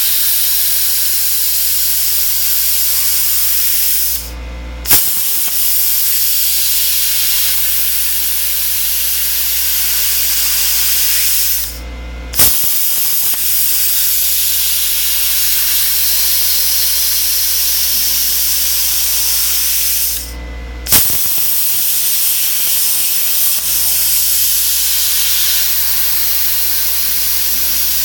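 CNC plasma cutter torch cutting steel plate: a loud, steady hiss. The hiss breaks off three times for about half a second, and each break ends with a sharp pop as the arc strikes again.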